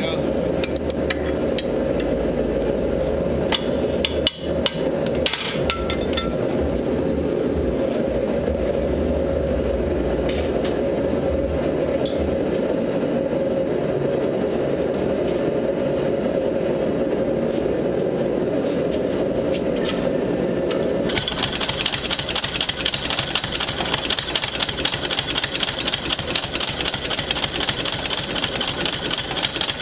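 Benchtop power hammer running, its electric motor and belt drive making a steady sound. About two-thirds of the way through, the ram starts striking rapidly and continuously on a bar of red-hot steel being forged.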